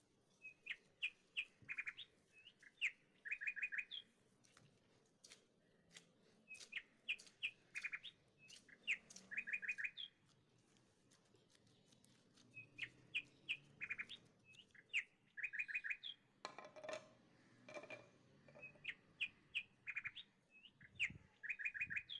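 A songbird singing the same phrase over and over, about every six seconds: a few high chirps followed by a quick trill of four or five notes. There is a brief noise about two-thirds of the way in.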